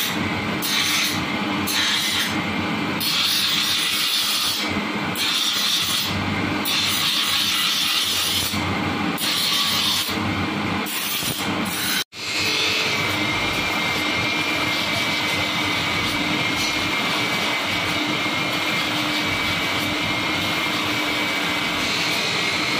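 Steel knife blade ground on a motor-driven grinding wheel, giving a rasping hiss under a low machine hum. At first the blade is pressed on and lifted off about once a second, so the hiss comes and goes. After a short break near the middle the grinding runs continuously, with a steady high whine.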